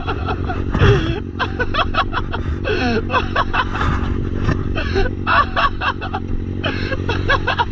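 Motorcycle engine idling steadily, its low even hum running under other sound.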